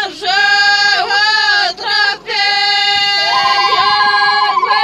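Women's voices singing an Amazigh wedding song. A high held note that trills quickly joins about three seconds in.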